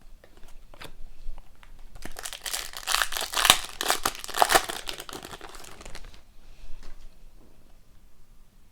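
Foil hockey card pack wrapper crinkling as it is torn open and handled, with a few light clicks before and after.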